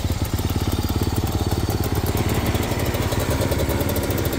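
Two-stroke snowmobile engine idling, a steady rapid putter, being warmed up before riding.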